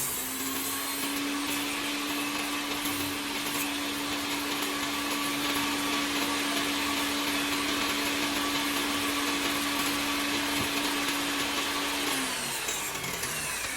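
Electric power tool motor running at a steady speed with a high hiss. About 12 seconds in it is switched off and its pitch falls as it spins down.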